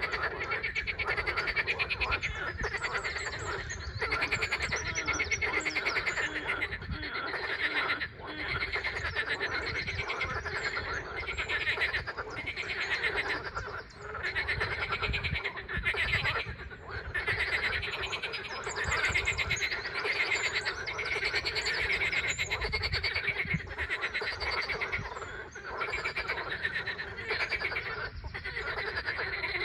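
A chorus of many frogs calling at once, a dense rapid pulsing of overlapping croaks that swells and dips every few seconds, with a low rumble underneath.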